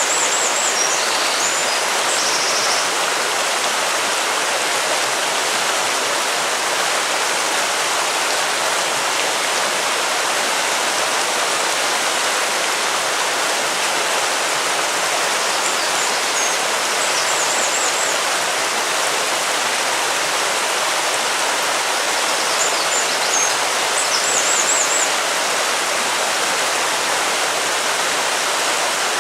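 River water flowing steadily, an even continuous rush. Faint high chirps come through briefly near the start, in the middle and again later on.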